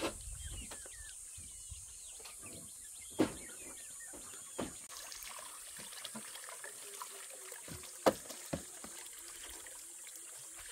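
A hammer knocking in single, separate blows, about five over ten seconds, the loudest a close pair around eight seconds in, over a steady high hiss.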